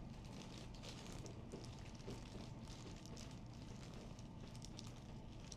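Faint rustling and many small soft clicks of a person and clothing shifting about during a chiropractic adjustment, over a low steady hum; no loud joint crack.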